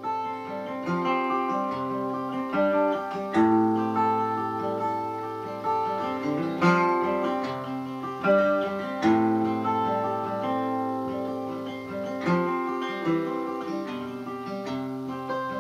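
Acoustic guitar playing an instrumental intro, plucked and strummed chords with notes ringing on.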